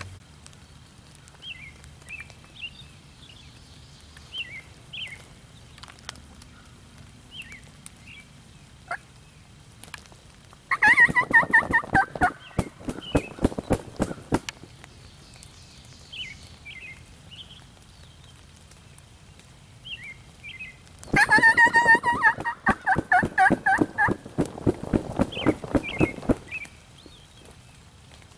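Wild turkey gobblers gobbling: two loud gobbles, the first about eleven seconds in and the second about ten seconds later and longer, with faint songbird chirps in between.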